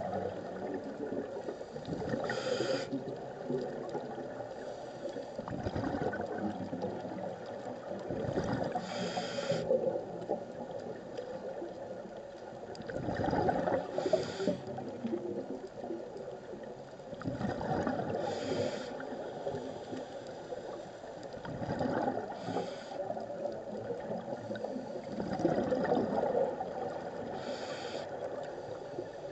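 Scuba diver breathing through a regulator underwater: six short hisses of inhaled air through the demand valve, one every four to six seconds, each followed by a longer bubbling gurgle of exhaled air.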